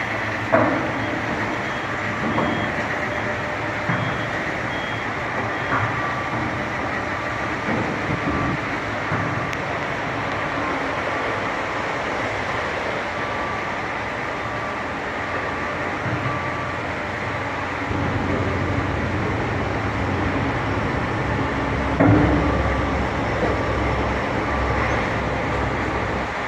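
Steady construction-site and traffic noise with a repeating electronic warning beep. A low rumble grows louder in the second half, with a single knock near the end.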